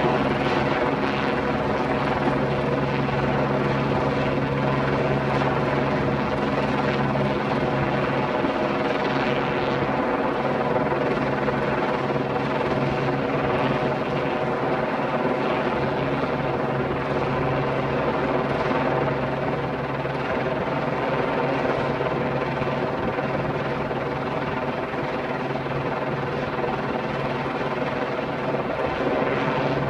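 Helicopter running steadily as it carries a 200-metre length of plastic pipe slung beneath it: a steady drone with many pitches.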